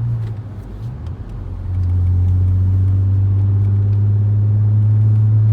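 Audi RS4 engine under way, a low rumble that swells about two seconds in into a loud, steady drone. The boost gauge still reads negative at this moment, so the engine is making no boost.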